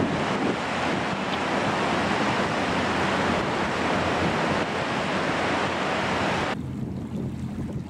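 Steady wash of surf and wind noise on the microphone. About six and a half seconds in, the hiss suddenly loses its top and turns to a quieter, duller wind rumble.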